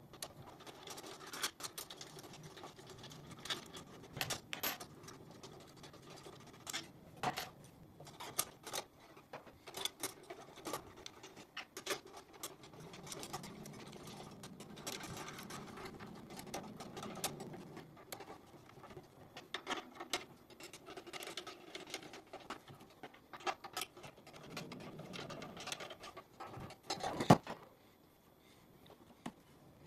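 Scattered clicks, scrapes and rattles of a screwdriver, a cooling fan and its wiring being worked on an ASIC miner's metal case during a fan swap, with one sharp knock near the end.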